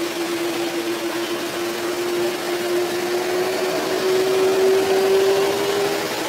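Airbus A330's jet engines running at taxi power: a steady hiss with a whine that rises slightly in pitch about halfway through, grows a little louder, then drops away near the end.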